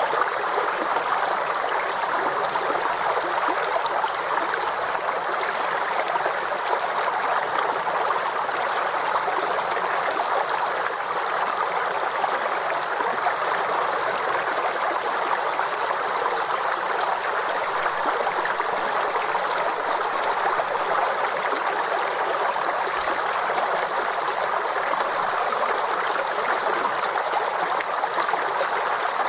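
Forest stream flowing steadily over rocks, a continuous rushing and burbling of water with no pauses or changes.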